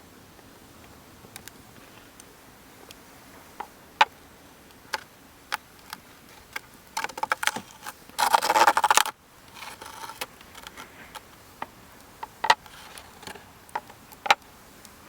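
Wood fire crackling: scattered sharp pops and snaps, with a dense burst of crackling lasting about a second just past the middle.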